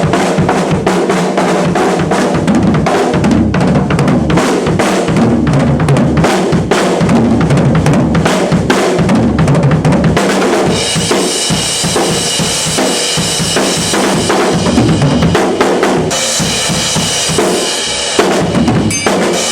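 Rock drum kit played hard: kick and snare beating steadily, with cymbals crashing and washing over the beat from about halfway through.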